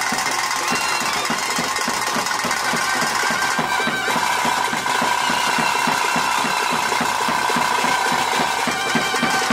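Traditional ritual band music of rapid, even drumbeats, as from thaase drums. Over the drums a wind instrument, as a nagaswara, holds long high notes, with one note sustained through the middle.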